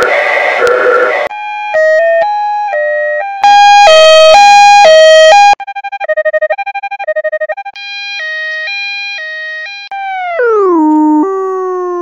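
Edited two-tone 'wee-woo' ambulance siren sound effect played in several variations. It starts with a gritty, noisy version, then clean high-low alternations, a very loud distorted stretch and a rapidly pulsing version. From about ten seconds in, the siren's pitch slides steadily down as it winds down.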